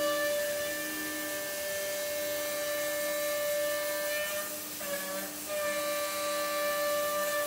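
CNC router spindle whining steadily, with a hiss of cutting, as a wide surfacing bit flattens an epoxy-and-wood river table top. The pitch dips briefly about five seconds in, then recovers.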